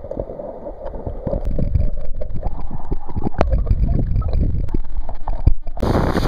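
Muffled underwater rumble and gurgling of river water picked up by a submerged waterproof camera, with scattered knocks and clicks against its body. Near the end it cuts to the even rush of a waterfall.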